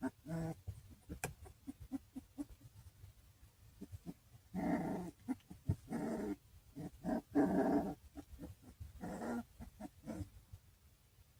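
Very young puppy yipping in short high calls, a few faint ones at first, then a run of louder yips from about four to nine seconds in.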